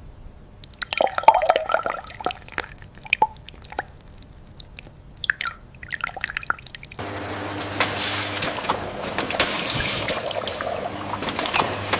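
Liquid dripping and splashing in irregular drops. About seven seconds in, a steady machine sound with a low hum and hiss takes over.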